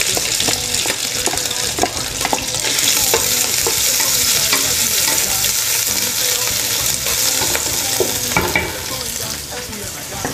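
Diced bacon sizzling as it fries in hot oil in an aluminium pot, the sizzle growing louder a few seconds in. A wooden spoon knocks and scrapes against the pot as the bacon is stirred.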